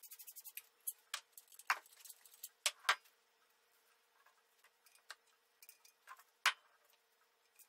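Hand socket ratchet clicking quickly on an exhaust bolt, stopping about half a second in. Then a few separate sharp metal clinks and knocks as the tools and the loosened exhaust muffler are handled, with one louder knock near the end.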